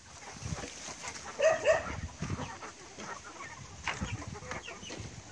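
Chickens clucking, with two short loud calls close together about a second and a half in.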